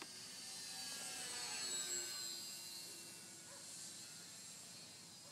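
Twin-engine RC model Cessna 310 flying overhead: a high-pitched motor-and-propeller whine that swells to its loudest about two seconds in, then fades as the plane passes.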